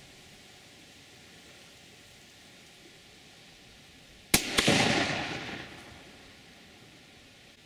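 A single rifle shot about four seconds in: a sharp crack followed by a long echo that fades over about two seconds. Before it there is only faint outdoor background.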